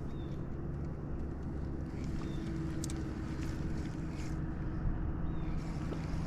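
A small boat's motor running with a steady low hum, its pitch shifting slightly about five and a half seconds in.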